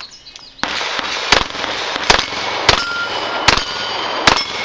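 A 9mm Open-division pistol with an Ottocomp compensator firing a quick string of about six shots, a little under a second apart, at steel plates. Some shots are followed by the short ring of the struck steel.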